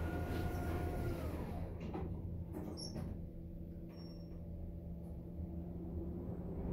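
Elevator door operator whining as the cab doors of a Schindler 5500 slide shut: the whine rises, holds briefly and falls away, followed by a couple of clicks as the doors lock. Then a steady low hum from the gearless belt-drive traction machine as the car gets ready to go up.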